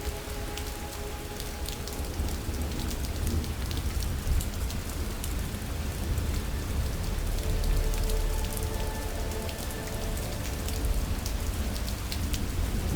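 Steady rain falling on a surface: a dense hiss of small drop ticks over a low rumble. A faint sustained music drone comes and goes beneath it.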